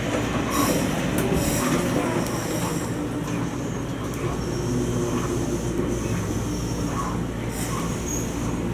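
Toyama Chiho Railway 20020-series electric train, the former Seibu New Red Arrow, running along the line, heard from inside at the front of the car: a steady rolling noise and hum, with brief high squeals from the wheels on the rails.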